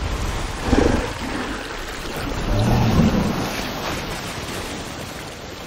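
Film sound design for a giant ape: deep growls swelling twice, about a second in and around three seconds in, over a steady rushing rumble.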